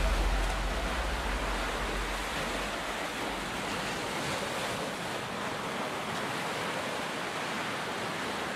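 Ocean surf washing onto a beach: a steady wash of breaking waves, with a deep rumble that fades away in the first couple of seconds.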